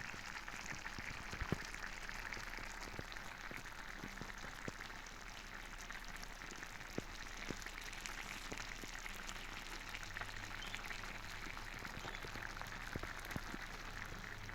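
Food sizzling in a hot pan: a steady, dense crackle with scattered sharper pops, the loudest about a second and a half in.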